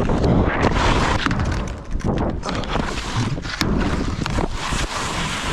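Skis running on packed snow with wind rushing over the microphone. About halfway through, the skis slide onto a rusted steel tube feature, scraping and clicking against the metal, with a brief high squeal.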